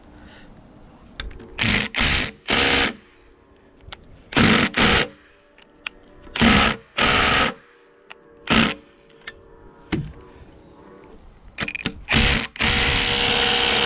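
Cordless impact driver driving a long timber screw down through a log, in short trigger bursts of well under a second, about eight of them, then a longer run of over a second near the end.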